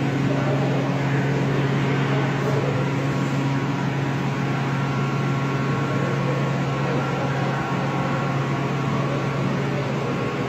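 A steady low mechanical hum with a faint hiss over it, unchanging throughout.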